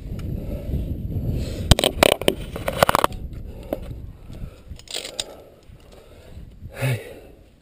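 Scraping and rubbing of a climber's body, clothing and gear against the rock, close to the microphone, with a cluster of sharp clicks and knocks about two to three seconds in, then quieter.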